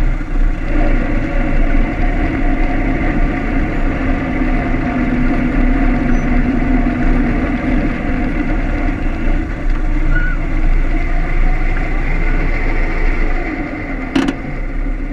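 1925 Ford Model T's four-cylinder side-valve engine running steadily as the car moves slowly across grass. A single sharp click near the end.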